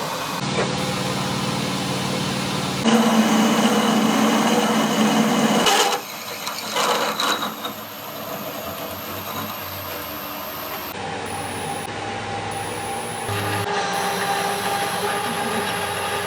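Workshop machinery running with a steady mechanical hum. The sound changes abruptly about three and six seconds in and again near the end, as different machines or operations follow one another.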